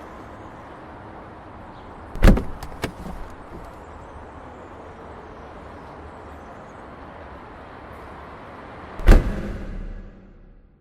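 Two loud thuds about seven seconds apart over a steady background hiss, a few lighter clicks after the first; the sound dies away to silence after the second.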